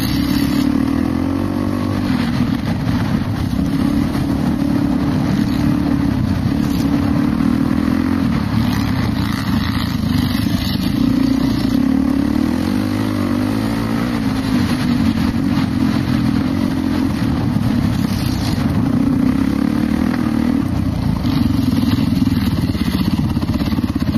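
Dirt bike engine running under way, close up, its pitch rising and falling with the throttle.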